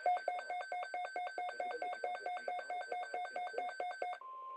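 Electronic alert tone from a weather-radio alert receiver, pulsing rapidly at about six beeps a second. Just before the end it switches abruptly to a single steady tone over radio hiss.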